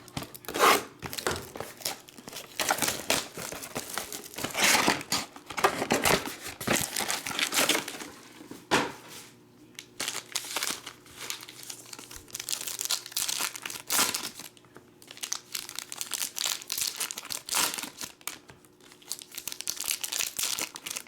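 Foil trading-card pack wrappers crinkling and being torn open, in uneven bursts of crackling with short pauses between.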